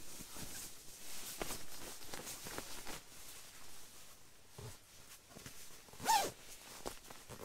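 A sleeping bag rustling as it is handled, with its zipper being drawn and one short, louder zip about six seconds in.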